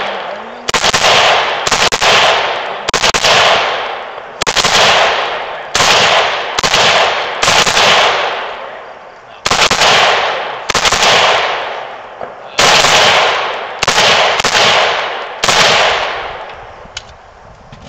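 Gunshots fired one at a time, a dozen or more roughly a second apart with a longer pause near the middle. Each is a sharp crack with a long echoing tail, and the firing stops about two seconds before the end.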